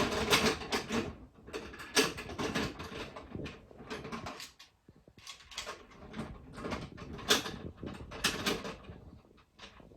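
Toy trains and track pieces being handled: an irregular run of light plastic clicks, knocks and clatters, with a brief lull about halfway through.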